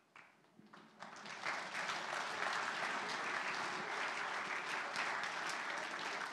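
Audience applauding. The clapping starts with a few scattered claps and swells into full, steady applause about a second in.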